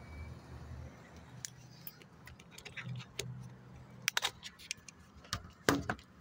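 Handling noise inside a vehicle: a run of sharp clicks and light knocks as the phone is moved about against the dashboard and window, loudest about four and six seconds in, over a low steady hum that fades about halfway.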